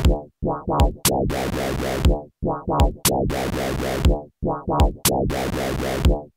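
Electronic beat played on a Teenage Engineering Pocket Operator Sub. A deep kick drum falls about once a second, short synth-bass notes sit between the kicks, and bursts of hissing noise repeat in the pattern.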